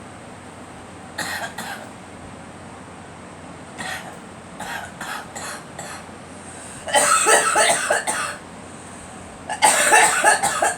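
A girl coughing in bouts: two short coughs about a second in, a run of short coughs around the middle, then two longer, louder coughing fits in the last four seconds.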